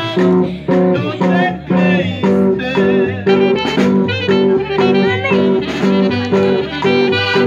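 Live band music: an accordion melody over a bass line that pulses about twice a second in a steady dance rhythm.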